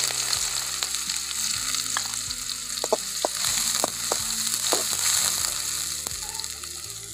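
Chopped onions sizzling in hot oil in an aluminium kadai, stirred with a steel spoon that scrapes and taps the pan several times. The sizzle slowly dies down toward the end.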